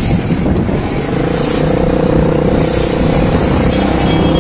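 Road traffic heard from a moving vehicle: a steady engine note with road and wind noise. The engine note settles in about a second in.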